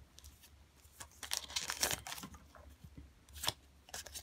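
A Digimon trading card booster pack's foil wrapper being torn open, crinkling, with a sharp crackle near the end as the cards come out.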